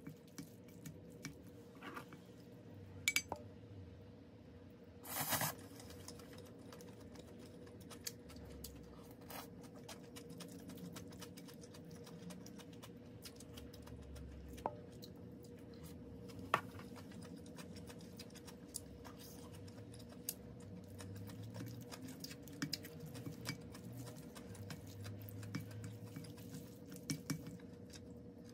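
Wooden chopsticks and a wooden spoon mixing saucy stir-fried squid and somen noodles in a ceramic bowl: soft wet squishing with scattered light clicks of wood against the bowl, and one brief louder noise about five seconds in.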